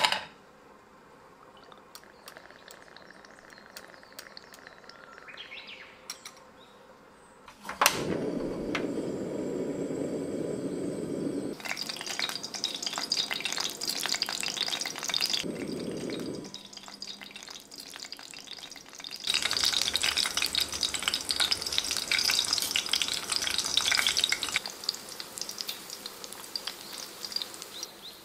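A click about eight seconds in, then a few seconds of olive oil being poured into an aluminium frying pan of sliced garlic and dried chili. After that comes the crackling sizzle of the garlic frying in the pooled oil. The sizzle comes and goes, is strongest in the later half, and weakens near the end.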